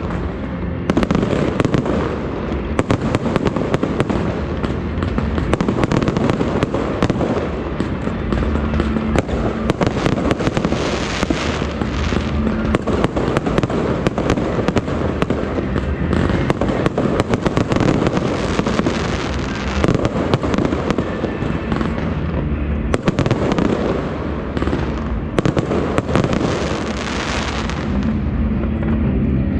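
Fireworks going off continuously: a dense stream of bangs and crackles over a low rumble, with no pause.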